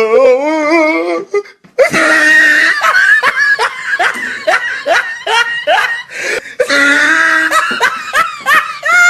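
Hearty laughter: a wavering laugh, a brief pause, then a long run of loud laughs at about two a second.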